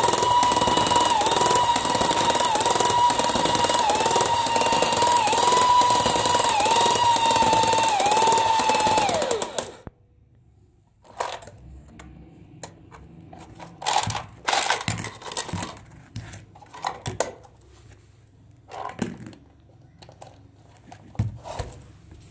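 The small electric motor and gearing of a battery toy football coin bank, run at 20 volts from a bench power supply, make a loud high whine that dips briefly about every second and a half. About nine and a half seconds in, the power is cut and the whine falls in pitch and stops. Light plastic clicks and knocks follow as the toy is handled.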